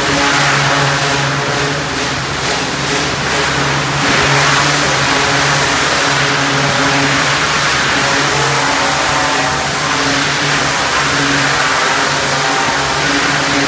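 Pressure washer running steadily: a machine hum under the hiss of the high-pressure water spray striking the pen floors and walls.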